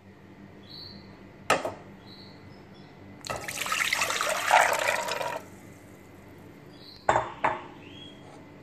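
Water poured into a non-stick cooking pot for about two seconds, splashing against the pot's bottom. A sharp knock comes before the pour, and two short clunks of kitchenware follow near the end.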